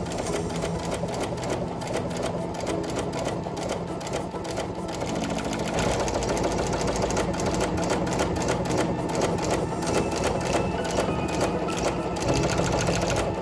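Brother domestic sewing machine with a walking foot fitted, stitching steadily at an even, rapid rhythm.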